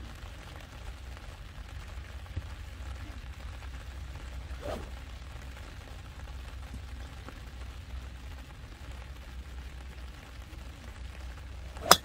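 Steady low rumble of wind on the microphone. Near the end comes a single sharp crack as a driver strikes a golf ball off the tee, a shot she feels she did not hit cleanly.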